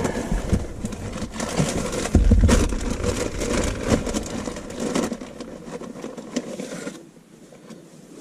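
Handling of dash cam wiring and a plastic zip tie close to the microphone: rustling with a quick run of clicks, busiest in the first few seconds and quieter toward the end.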